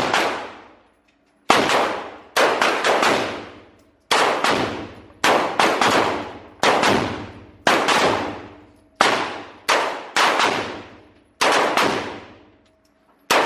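A string of gunshots on an indoor shooting range, about one a second and sometimes in quick pairs, each sharp crack trailing off in a ringing echo.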